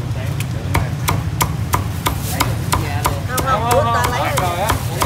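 Cleaver chopping crackling-skinned roast pork (heo quay) on a thick round wooden chopping block: steady sharp knocks, about three a second.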